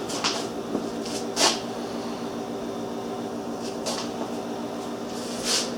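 A steady low electrical hum of shop equipment, with four short scuffs or rustles as the camera and the things around it are moved about, the loudest about a second and a half in.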